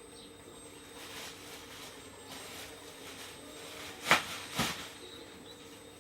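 RC hydraulic excavator model (339DL) with its hydraulic pump running as a steady hum, with faint swelling hiss as it works. Two sharp knocks about half a second apart come about four seconds in.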